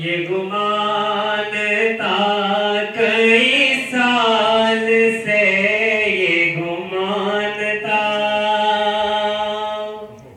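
A man singing a naat unaccompanied: one long, drawn-out phrase that bends and slides in pitch for nearly ten seconds over a steady low held tone, then fades out near the end.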